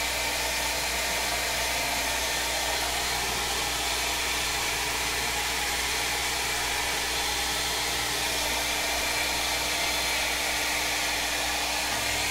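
Handheld hair dryer running steadily, a constant airy rush with a low hum, blowing heat onto tail light protection film to soften it.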